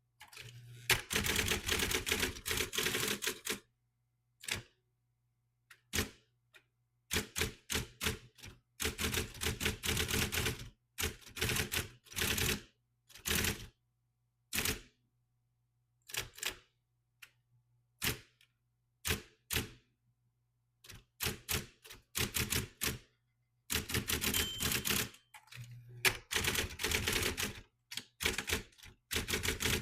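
Brother Correct-O-Ball XL-I electric typewriter typing in quick bursts of keystrokes separated by short pauses, with a low steady hum underneath.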